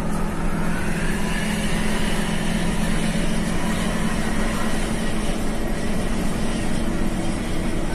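Cabin noise inside a moving intercity bus: a steady engine drone with road and tyre noise.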